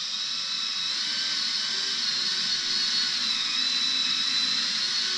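Cordless drill spinning a pointed milling bit that routes out open air bubbles in partly cured epoxy resin that is still relatively soft. The drill gives a steady high-pitched whine.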